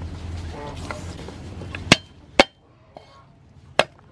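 Steel cleaver chopping garlic cloves on a thick wooden chopping board: three sharp chops, two about half a second apart in the middle and a third near the end.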